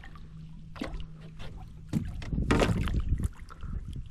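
A hooked crappie splashing at the water's surface beside the boat as it is grabbed by hand, a handful of short, sharp splashes and knocks, the loudest about two seconds in. A faint steady low hum runs underneath.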